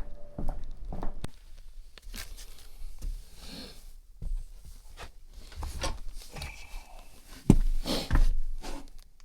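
Scattered knocks, thumps and rustles of a person moving about and climbing up into an attic, with two heavier thumps near the end.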